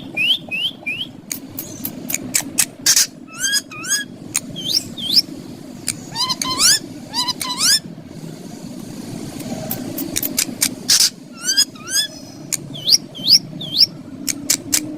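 Green ringneck parrots calling: clusters of short, rising chirps mixed with many sharp clicks, over a steady low background hum.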